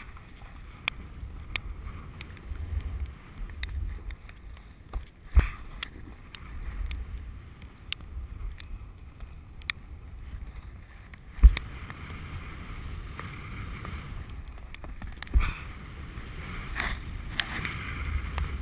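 Wind buffeting a body-worn action camera's microphone while riding fast over snow, with the hiss of the board or skis sliding on the snow growing in the second half. Three sharp knocks stand out, about five seconds in, midway and a few seconds before the end.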